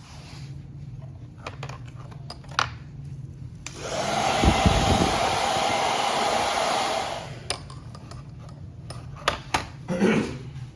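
Handheld hair dryer switched on about four seconds in, blowing steadily with a whirring tone for nearly four seconds, then switched off. A few light handling clicks before and after.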